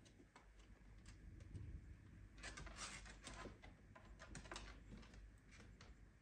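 Faint, scattered clicks and taps from miniature dachshunds moving on bare wooden floorboards, with a denser flurry about two and a half seconds in.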